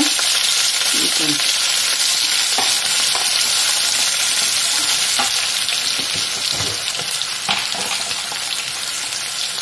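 Hot oil sizzling steadily in a cooking pan, with a few light clicks of a spoon stirring against the pan.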